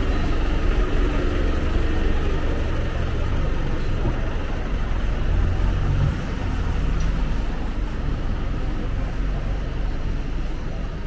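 City street ambience dominated by motor traffic: a vehicle engine running close by, easing off about six seconds in, over the steady hum of traffic.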